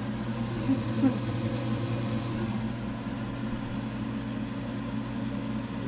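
Kitchen range hood exhaust fan running with a steady hum.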